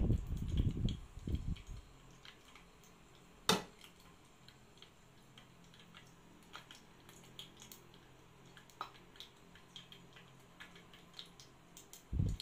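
Quiet hand-work sounds of wonton wrappers being filled from a bowl and folded: low bumps for the first couple of seconds and again near the end, a single sharp click about three and a half seconds in, and faint scattered ticks in between.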